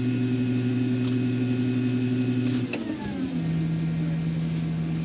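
Farm machinery engine running at a steady speed, then about two and a half seconds in a click and the engine speed drops, the hum gliding down to a lower steady pitch as it throttles back.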